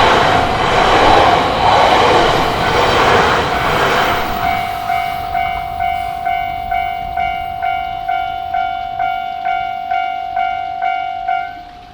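A Yamagata Shinkansen train running through a level crossing, its wheels clattering over the rails, for about the first four seconds. As the train noise fades, the crossing's warning bell is left ringing at about two strikes a second over a steady tone. The bell stops shortly before the end, as the crossing clears after the train.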